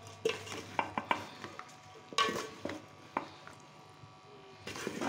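A long-handled spoon stirring cut flat beans and potato chunks in a masala in a metal pot, with irregular scrapes and knocks against the pot.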